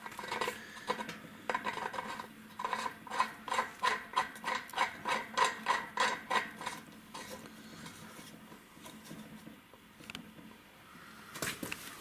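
Steel nut and washer being turned by hand down the threaded drum shaft that holds the washing-machine pulley. The metal clinks quickly, about four times a second, for most of the first seven seconds, then gives way to softer rubbing and a few last clicks near the end.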